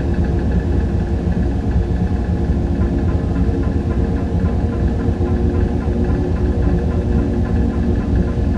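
Dark ambient drone of a clattering machine: a steady, low machine hum with a fast flickering rattle in the low end and several held tones above it, unchanging throughout.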